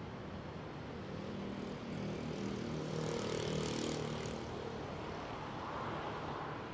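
Distant diesel shunting locomotive's engine running, swelling louder for a couple of seconds in the middle with a brief hiss about three seconds in, then easing back to a steady drone.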